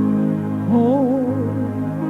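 Slow music: held keyboard chords, with a voice singing a wavering line from under a second in.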